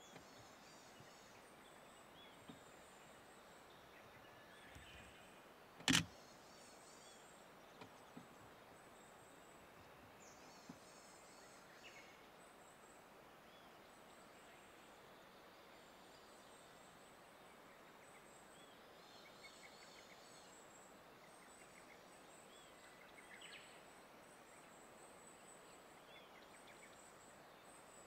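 Quiet countryside ambience with faint bird calls and high chirping. A single sharp click about six seconds in.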